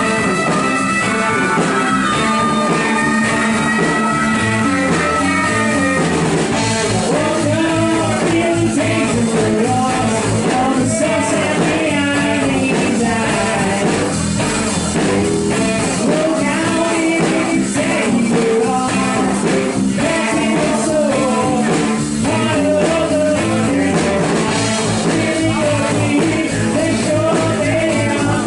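Live rock band playing a song, with electric guitar over a steady full-band backing; held lead notes ring out in the first few seconds.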